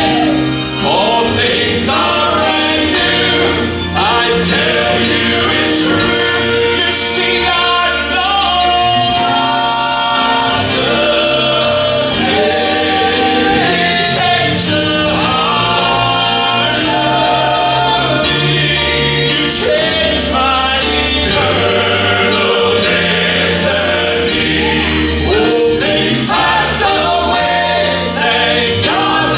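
A male southern gospel quartet singing in close harmony over instrumental accompaniment.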